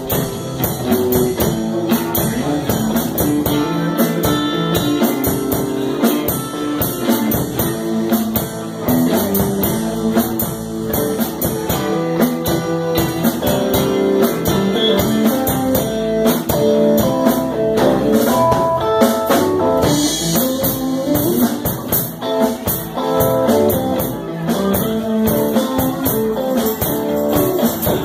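Live band playing: electric guitars over bass guitar and drum kit.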